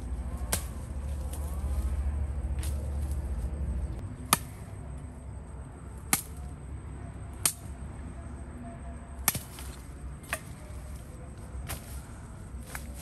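Wood being chopped with a blade: sharp single strikes about every one to two seconds, beginning about four seconds in. A low steady rumble runs underneath at first and stops just before the strikes begin.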